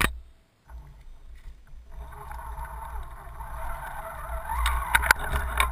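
Axial SCX10 RC crawler heard from a camera mounted on it, driving into shallow floodwater: a low steady running of its motor and drivetrain with water churning, growing louder from about two seconds in. Several sharp knocks come near the end, and a single click at the very start.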